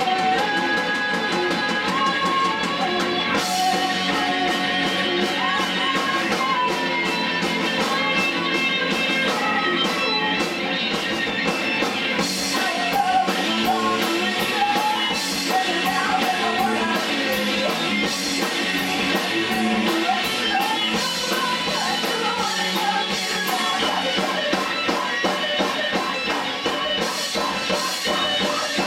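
A small rock band playing live: distorted electric guitars, bass and a drum kit, with a woman singing over them. The cymbals and drums fill out the top of the sound about three and a half seconds in.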